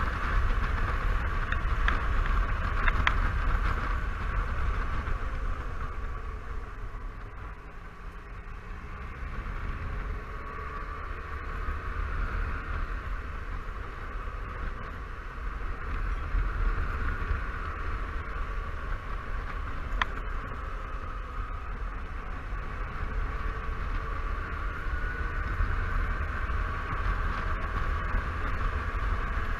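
Riding noise on a Honda Silverwing 600 maxi-scooter: wind rumbling on the bike-mounted microphone over the hum of its parallel-twin engine. The noise eases off about a quarter of the way through, then builds again, with a single sharp tick about two thirds of the way in.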